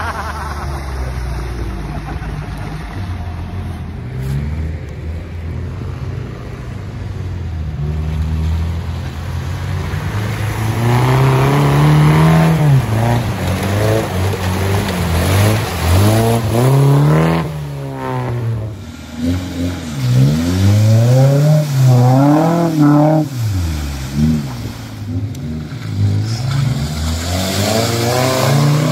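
Suzuki Vitara off-road engine running, steady at first, then revving up and down again and again from about ten seconds in as it drives through deep mud and water.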